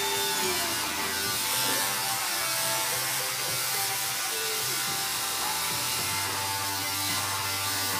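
Electric grooming clippers running with a steady buzz.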